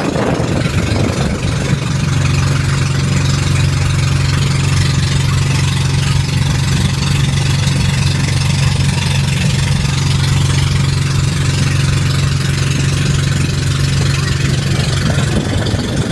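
A boat's engine running steadily under way, a low even drone, with a constant hiss of wind and water over it.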